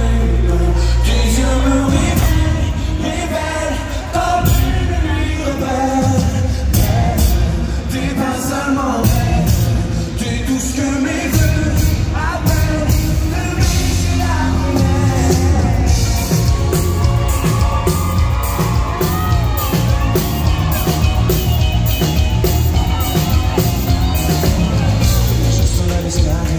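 Live pop concert heard over the PA: a male singer singing into a microphone over a band with heavy bass, guitar and a steady drum beat that fills in after a few seconds.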